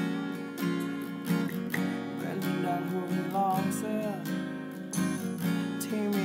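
Acoustic guitar strumming chords.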